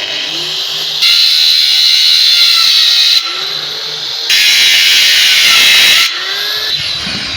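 Angle grinder running at speed with a high-pitched whine. It gets clearly louder for about two seconds twice, starting about a second in and again past the four-second mark, as if the disc is under load in the work.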